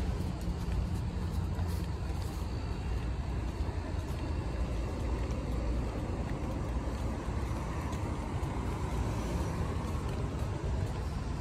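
Steady street traffic noise: a continuous low rumble with no single vehicle standing out.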